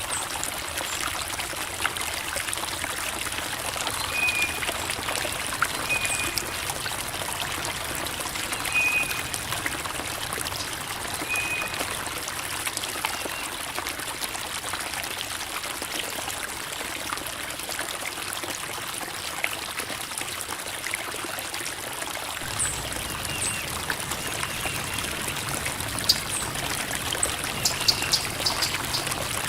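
Creek water trickling and babbling over rocks, a steady hiss-like flow. A few short high chirps come through in the first half, and a low rumble joins in about three-quarters of the way through.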